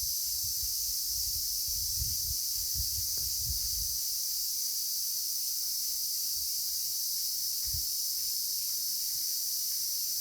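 Steady, high-pitched insect chorus of crickets or cicadas, shrilling evenly without a break. Low rumbling surges can be heard underneath during the first four seconds and once briefly near the end.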